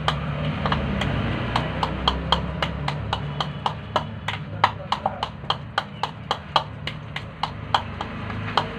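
A spoon clicking and scraping against a plastic bowl in quick, irregular strokes as a thick fishing-bait dough is stirred, over a steady low hum.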